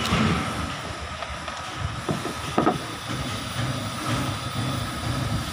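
A few short knocks and clicks as an opened angle grinder's plastic housing is handled and set down on a plywood workbench, over a steady low background rumble.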